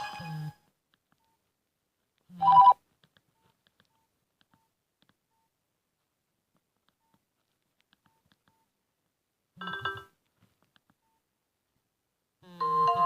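Nokia 5200 ringtones from the phone: one melody cuts off at the start, a short, loud burst of electronic tones comes about two and a half seconds in, a fainter short burst follows near ten seconds, and the next ringtone melody starts near the end, with silence in between.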